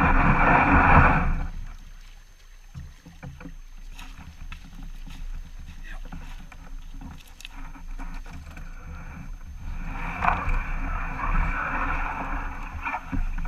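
Kayaks being paddled on a river: water sounds with scattered light knocks. A louder steady noise fills the first second and a half and returns from about ten seconds in.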